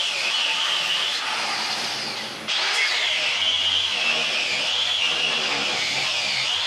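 Power grinder running against steel, its high whine wavering in pitch as it is pressed into the work. It eases off briefly a little over two seconds in and comes straight back up.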